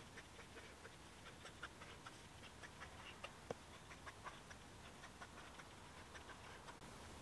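Faint scratching and tapping of a marker pen writing small letters on paper, a scatter of short irregular ticks over near-silent room tone.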